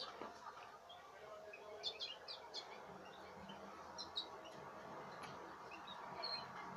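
European goldfinches (Carduelis carduelis major) giving short, high chirping call notes in scattered clusters: a quick run of notes about two seconds in, a couple more around four seconds, and single notes later, over a faint steady background noise.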